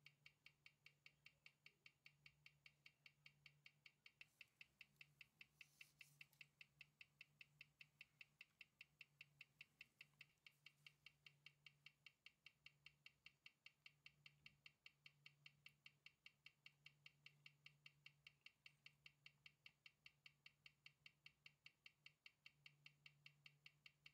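Faint, even ticking of a 1960s Kienzle watch's Swiss ETA 2390 mechanical movement, five ticks a second (18,000 beats per hour). The timegrapher reads a low balance amplitude of about 175°, a bad sign for the movement's condition.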